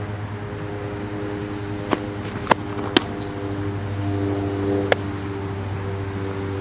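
A few sharp smacks of a softball popping into a catcher's leather mitt, the loudest two about two and a half and three seconds in, over a steady low hum.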